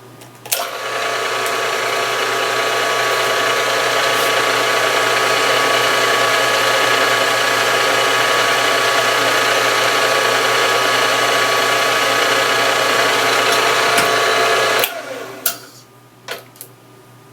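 A geared machine tool's motor running steadily, the drilling machine set up to drill the cross hole for the roll pin. It starts about half a second in, comes up to speed, runs for about fourteen seconds and is switched off, followed by a few light clicks.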